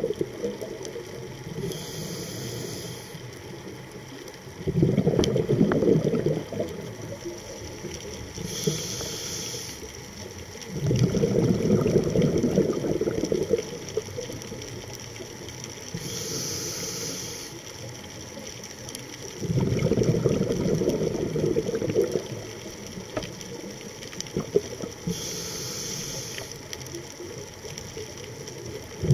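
Scuba diver breathing through a regulator underwater: a short hiss of air on each inhale, followed a few seconds later by a loud burst of exhaled bubbles lasting two to three seconds. Four breaths, about one every seven to eight seconds.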